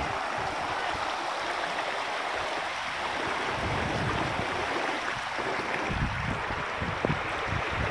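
Shallow mountain river flowing over rounded stones: a steady rushing and burbling of water, with a few low bumps in the second half.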